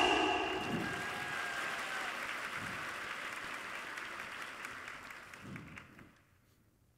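Audience applauding, loudest at the start and dying away over about six seconds. A ringing tone fades out under the applause in the first second or two.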